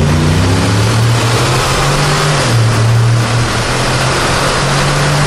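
Car engine pulling hard in sport mode, heard through open windows over road and wind noise; its pitch drops about halfway through and rises again near the end.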